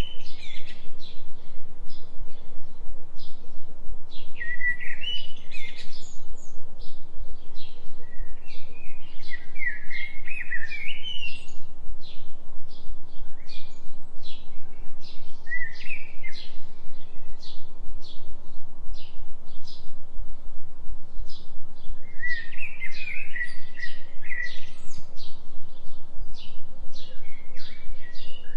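Forest birdsong: warbling phrases come back every few seconds over an evenly repeated series of short high chirps. Underneath runs a steady low hum whose loudness pulses rapidly, the binaural delta-frequency tone laid under the nature sounds.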